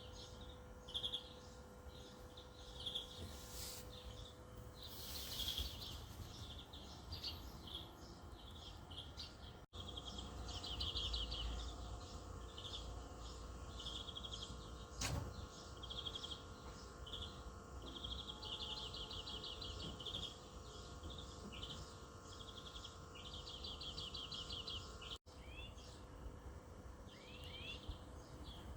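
Small songbirds singing: short high trills and chirps repeated one after another over faint steady background noise. The sound drops out for an instant twice.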